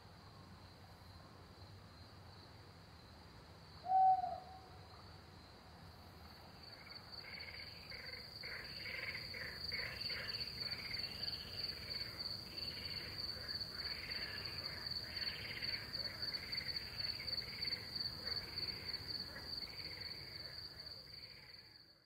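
Night-time Mediterranean ambience: crickets trill steadily on one high note, with a single short hoot about four seconds in. From about seven seconds a frog chorus swells in, repeating calls about once a second, and all of it fades out at the very end.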